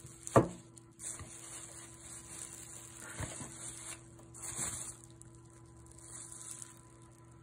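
Bubble wrap crinkling and rustling as it is handled, with a sharp knock about half a second in.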